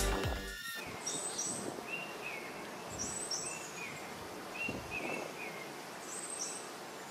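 Birds calling over a faint steady outdoor hiss: short high chirps in pairs three times, with lower short notes between them, every second or two.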